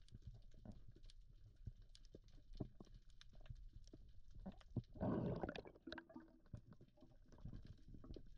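Faint underwater reef ambience heard through a camera housing: scattered small clicks and crackles, with one louder, short rushing burst about five seconds in.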